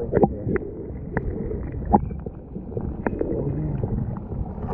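Muffled underwater sound of a tide pool heard through a submerged camera: a low rumble and gurgle of moving water with several sharp clicks and knocks scattered through it.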